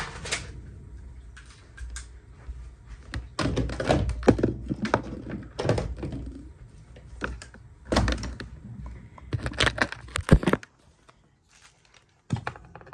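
Handling noise: irregular thumps, knocks and rubbing as things are moved about by hand. The sound drops out to near silence for about a second and a half near the end.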